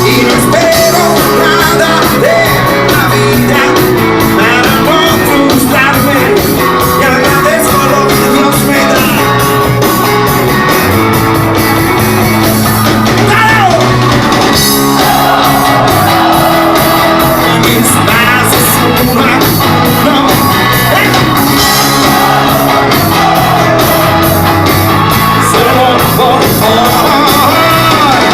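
Rock band playing with a lead singer, loud and continuous.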